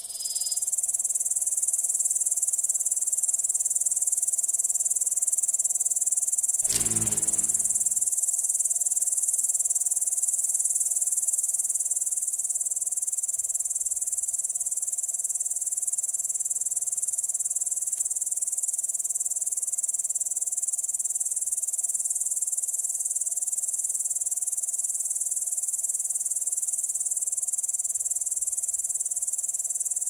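Continuous high-pitched insect chirring, like a chorus of crickets, steady throughout. About seven seconds in, a brief low-pitched sound lasts around a second.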